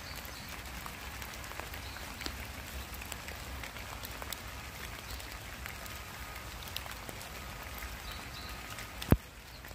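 Rain falling on pavement: a steady hiss with scattered small drop taps. One much louder sharp tap comes near the end.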